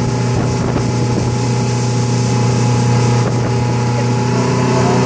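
Motorboat engine running at a steady speed while towing, a steady drone, with wind on the microphone and the rush of the wake.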